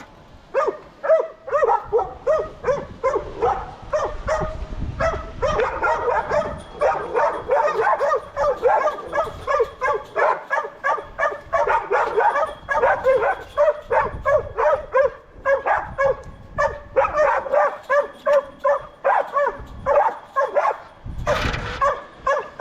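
A dog barking continuously, about three short barks a second. A brief rush of noise comes near the end.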